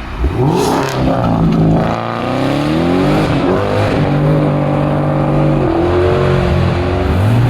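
American V8 car engine revving and accelerating hard. Its pitch climbs and steps up and down several times.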